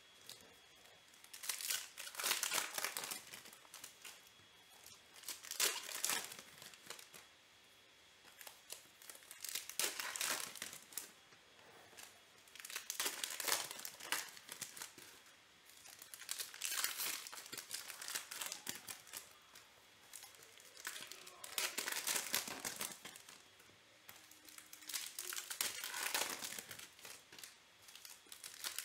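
Foil trading-card pack wrappers (Panini Select baseball packs) being torn open and crinkled by hand, in about seven bursts a few seconds apart, with quieter handling of the cards between them.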